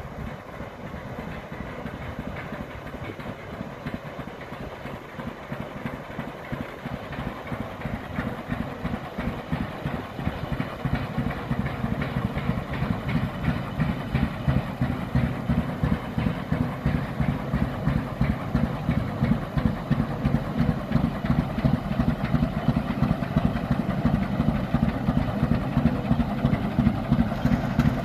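Rumely tractor's engine running with a steady, slow beat of evenly spaced firing pulses, growing louder as the tractor drives out of the shed and nears.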